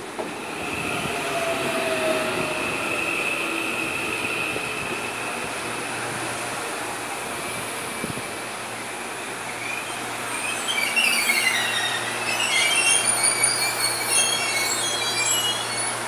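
CPTM electric commuter train pulling in along the platform and braking: a whine falling in pitch as it slows, then a cluster of high-pitched wheel and brake squeals from about ten seconds in as it comes to a stop.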